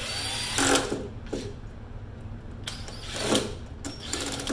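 DeWalt cordless drill driving a screw into a metal outlet cover in short bursts, two loud ones about half a second in and after three seconds. The screw is being run until it strips out.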